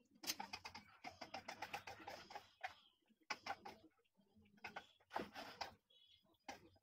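Faint clicking and tapping of a knife and fingers on a round wooden board as cut strips of namakpara dough are pulled apart and scraped together: a quick run of clicks at first, then a few scattered taps.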